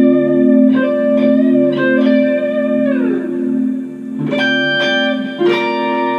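Electric guitar played through a sound-on-sound looping effect: picked single notes ring on and layer over a held low drone. About three seconds in a note slides down in pitch, then a few more picked notes follow and hang on.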